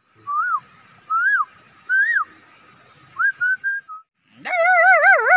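A man whistling through his lips to imitate an animal call: three separate rise-and-fall chirps about a second apart, then a quick run of shorter notes. After a brief silence near the end, a man's voice starts a wavering, whining imitation of a dog whimpering.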